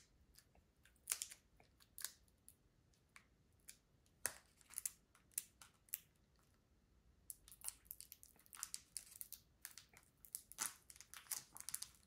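Faint crinkling and snapping of a Pokémon trading-card booster pack's foil wrapper and cards being handled, in scattered short bursts that grow denser over the last few seconds.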